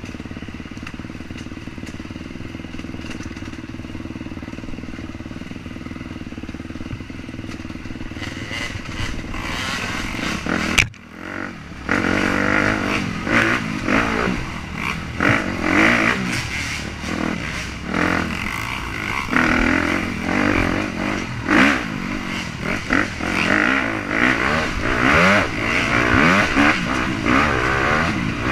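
KTM dirt bike engine running under the rider, heard from the rider's helmet: fairly steady at first, then revving hard and rising and falling in surges over the trail. A single sharp knock comes about eleven seconds in.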